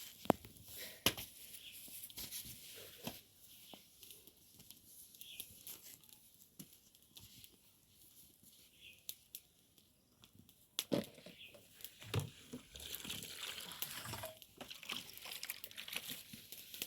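Cooking handling noises: scattered clicks and knocks with rustling and crinkling, busier in the last few seconds.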